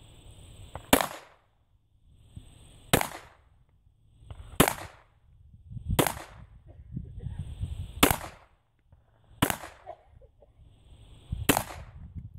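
Pistol fired in slow, single shots: seven sharp reports about one and a half to two seconds apart, each with a brief ringing tail.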